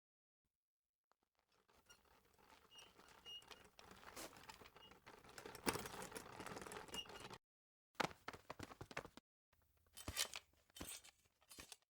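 Three short cartoon sound effects cut one after another with silence between them: crackling, rustling noise with scattered sharp clicks, the first one longest at about six seconds.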